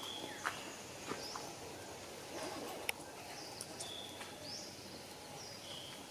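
Outdoor background noise with scattered short, high chirps and whistles, some gliding up or down, and a sharp click about three seconds in.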